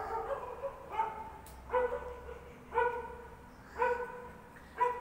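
Street dogs barking: five short barks, about one a second.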